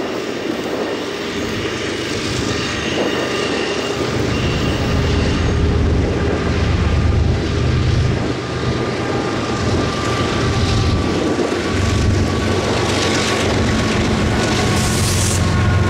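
Diesel freight locomotives running with a steady low engine rumble and a thin whine above it.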